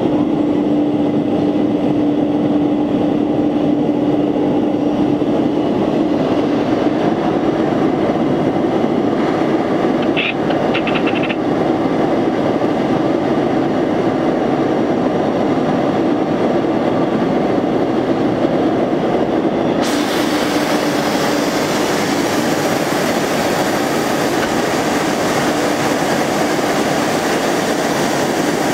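Large automatic tool change CNC router running with a steady machine hum. A few short high squeaks come about ten seconds in, and a harsher hiss joins abruptly about two-thirds of the way through as it routes the MDF.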